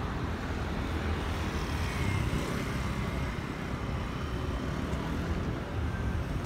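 Steady road traffic noise, a low rumble of vehicles on the street.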